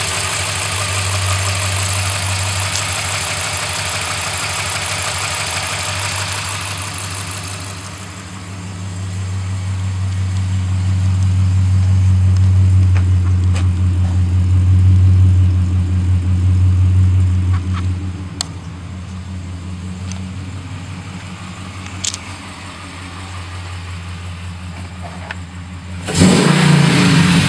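Pickup truck engine idling steadily: first with the whir and hiss of the fan and belts under the hood, then as a strong steady low exhaust rumble at the tailpipe. Near the end comes a sudden loud rustle or thump.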